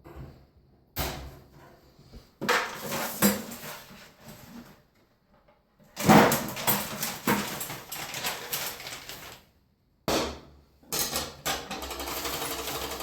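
Knocking and clattering of a washing machine's metal cabinet and parts being handled during a repair, in several separate bursts. About a second and a half before the end a power drill/driver starts running steadily, driving in screws.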